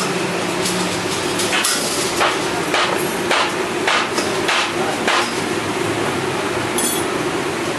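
Hammer striking iron, about seven evenly spaced metallic blows roughly half a second apart, over a steady low hum. One more ringing metal strike comes near the end.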